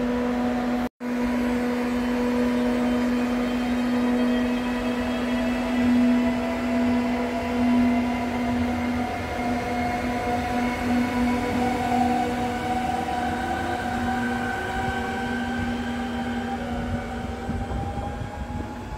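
Slovenian Railways Siemens Desiro electric multiple unit pulling away: a steady electric hum with rising whines from its traction drive as it accelerates off, fading as it moves away. The sound cuts out briefly about a second in.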